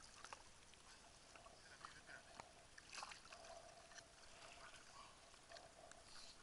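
Near silence: faint water lapping against a floating jet ski's hull, with scattered small ticks.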